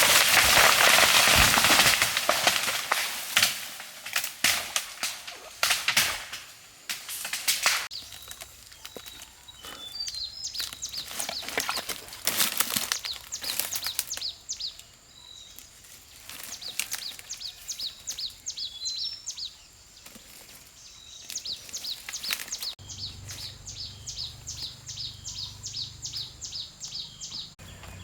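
A chainsaw runs loudly for about two seconds, then stops, leaving a scatter of sharp knocks and clicks. After that comes a long run of quick, evenly repeated high chirps. Near the end a low steady hum comes in as the saw starts up again.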